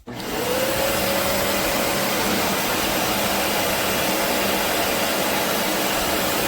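BISSELL Revolution HydroSteam Pet carpet cleaner switched on: its motor spins up with a rising whine over about half a second, then runs steadily with a loud even rush of suction.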